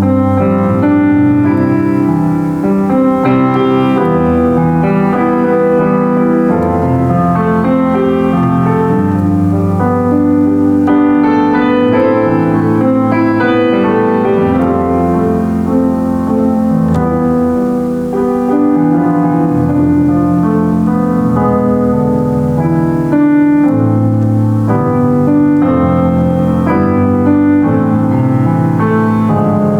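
Solo piano playing unbroken, with full chords over a moving bass line and a melody on top.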